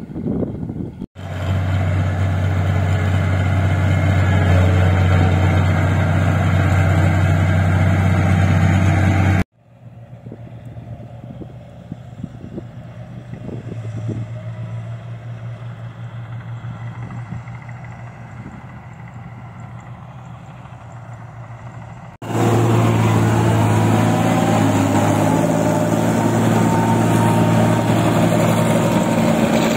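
Rice combine harvester engine running with a steady low hum, loud and close. It cuts abruptly to a quieter, more distant engine with a few knocks, then back to a loud close engine near the end.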